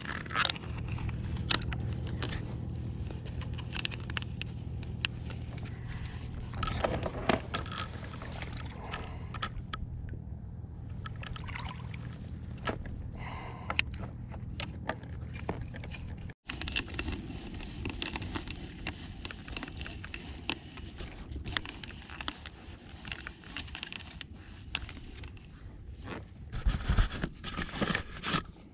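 Close handling noise on a small kayak: scattered clicks, knocks and rubbing from fishing tackle and the hull, over a steady low hum. The sound breaks off for an instant about halfway, and a few louder knocks come near the end.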